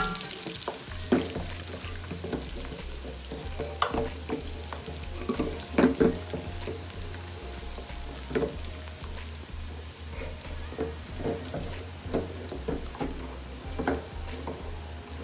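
Onions frying and sizzling in a pan. A spoon stirs them and knocks and scrapes against the pan every second or two.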